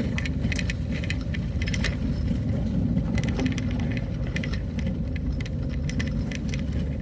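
Vehicle moving along a road: a steady low rumble of engine and tyres, with frequent short rattles and clicks over it.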